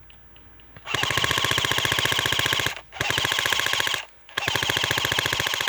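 Airsoft gun firing on full auto in three rapid bursts, the first about two seconds long, the second about a second, the third running on near the end.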